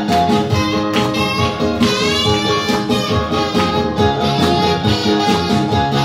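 Recorded instrumental backing music with guitar playing, without a voice singing over it.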